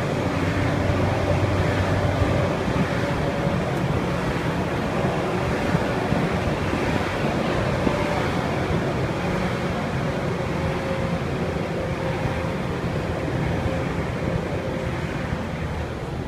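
A moving vehicle's engine and road noise heard from on board, with wind rushing past, steady throughout with a faint wavering whine.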